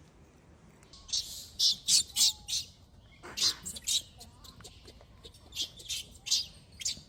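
Young macaque giving repeated short, high-pitched screams in three bursts, the distress cries of a youngster being refused the teat as its mother weans it.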